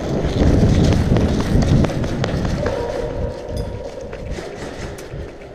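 Running footsteps on a concrete floor, heavy and thudding for the first two to three seconds, then easing off.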